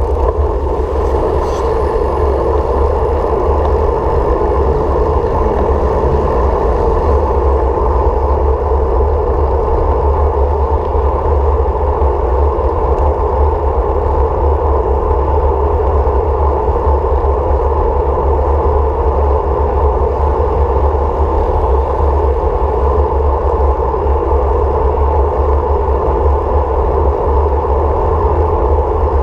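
Steady running noise of a vehicle on the move, a continuous low rumble with a broad rushing hiss above it and no change in pace.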